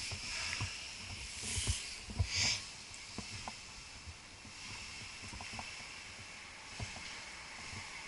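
Scattered light knocks and clicks with a brief rustling swish about two seconds in, from a tree climber shifting on his rope and harness among pine boughs, over a faint steady hiss.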